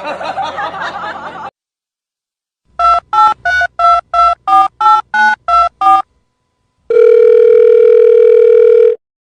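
Telephone keypad dialing: about ten quick beeps, each a pair of tones at its own pitch, followed by one steady tone held for about two seconds. Before it, a wavering voice-like sound cuts off abruptly.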